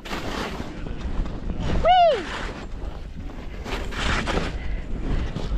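Skis scraping and swishing through bumpy snow in a run of turns, with wind rumbling on the microphone. About two seconds in, a person gives one short high whoop that rises and then falls.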